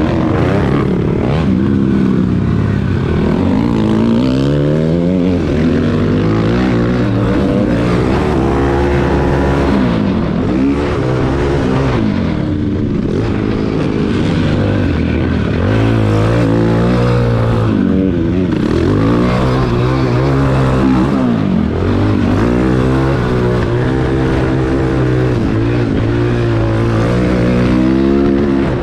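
Cannondale ATV's single-cylinder four-stroke engine being ridden hard, revving up and dropping back over and over as the throttle opens and closes through the gears.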